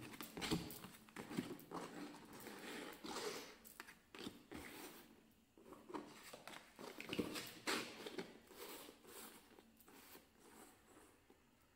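Tarot cards being gathered and dealt on a tabletop: quick papery slides and light taps as the cards are picked up, stacked and laid down face down in a row. They come in irregular bursts that thin out near the end.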